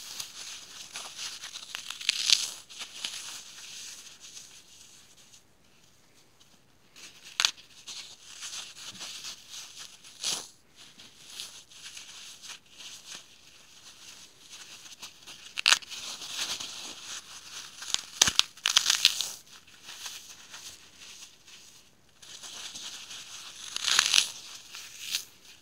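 Dry, unsoaked floral foam crushed and crumbled between rubber-gloved fingers: crisp, irregular crunching and crackling in bursts with short pauses between.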